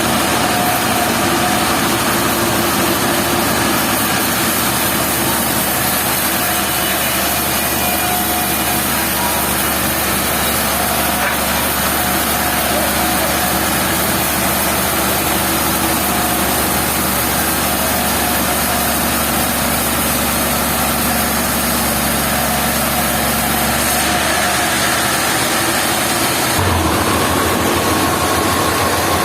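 Engine-driven machinery running steadily at a constant speed, a dense mechanical din with a steady hum underneath. About 27 seconds in, the low hum changes pitch.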